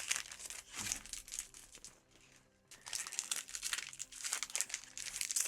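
Plastic booster-pack wrappers crinkling as Pokémon card packs are handled and opened, in irregular crackles with a brief pause about two seconds in.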